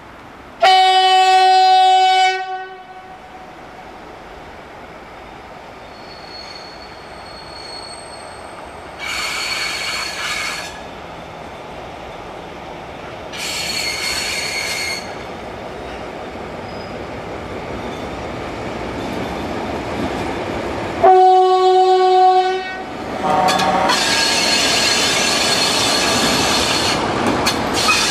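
DR class 118 (V 180) diesel-hydraulic locomotive sounding its horn twice, each a blast of about two seconds, the second coming some twenty seconds after the first. Between them its engine grows louder and two short bursts of wheel squeal are heard. From just after the second blast, loud steady wheel squeal and rumble come from the train of hopper wagons passing close.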